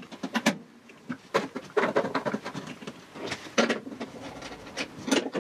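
Irregular small metallic clicks and rattles as cable leads are undone and moved at the polarity terminals inside a MIG welder's sheet-metal case, changing the polarity for gasless wire.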